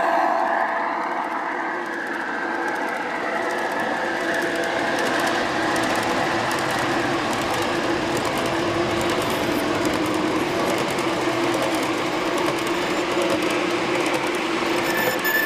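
G-scale model freight cars rolling fast past on garden-railway track: a steady rush of wheels on the rails with fine, rapid clicking.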